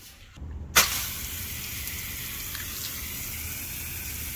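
Water spraying from a pistol-grip hose spray nozzle in a steady hiss at good pressure, starting abruptly about a second in.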